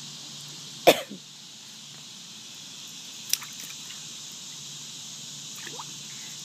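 A single short cough about a second in, over a steady high insect-like hiss; a faint click follows a couple of seconds later and a small soft vocal sound comes near the end.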